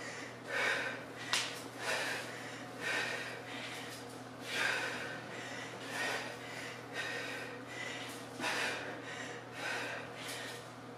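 A woman's hard, audible breathing during double-arm kettlebell swings: short, forceful breaths about once a second, in rhythm with the swings.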